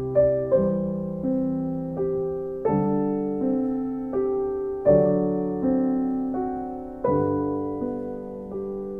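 Background piano music: gentle chords, each struck and left to ring and fade, with a new chord about every two seconds.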